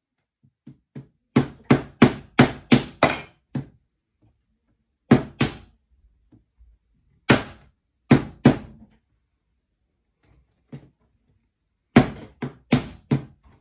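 Small hammer tapping track pins into a model railway baseboard: a quick run of sharp taps at about four a second, a few single and paired taps, then another quick run near the end.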